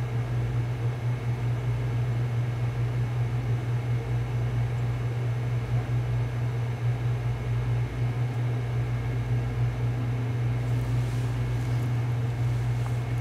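A steady low hum with a light hiss, unchanging throughout, with a few faint ticks near the end.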